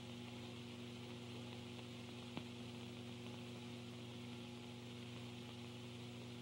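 Steady hum and hiss of an early-1930s optical film soundtrack between lines of dialogue, with a single faint click about two and a half seconds in.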